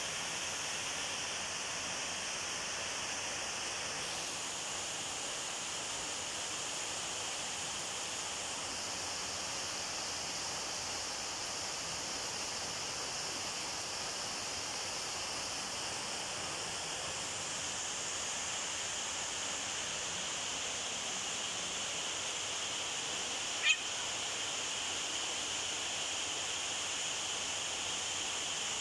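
Steady high-pitched hiss of outdoor night ambience, with one sharp click near the end.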